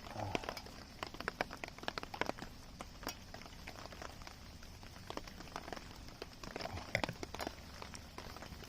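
Light rain falling on a camping tarp: drops strike the fabric in irregular sharp ticks over a faint steady hiss.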